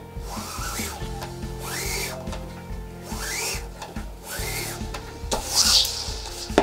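Paracord strands rubbing and swishing as they are pulled through the nylon webbing end of a rifle sling, in several separate pulls, the loudest near the end. Background music plays with steady low notes underneath.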